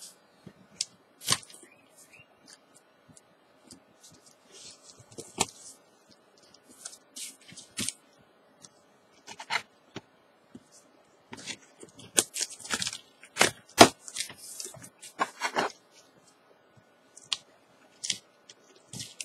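Cardboard shipping box being pried open by hand: taped flaps cracking, packing tape tearing and cardboard scraping in irregular short bursts, busiest and loudest in the second half.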